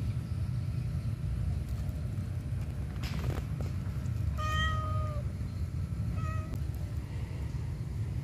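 Calico cat meowing twice: a longer, even meow about four and a half seconds in and a short one about two seconds later, over a steady low rumble.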